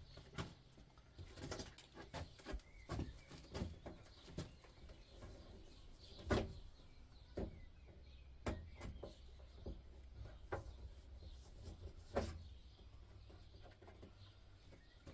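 Control knobs being pulled off an electric steel-plate hob and the hob being handled: irregular clicks and knocks of plastic and metal, a dozen or so spread out, with a faint low hum underneath.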